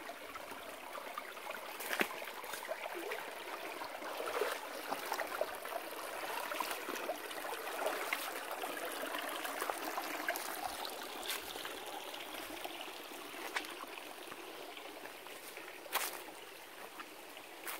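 Shallow rocky stream trickling steadily over stones, with a few sharp knocks, the strongest about two seconds in and near the end.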